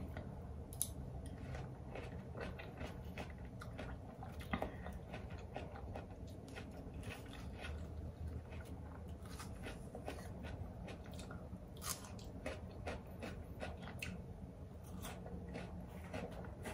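Close chewing and crunching of fresh fruit slices such as apple and pear, with irregular sharp clicks of a metal fork against a ceramic bowl.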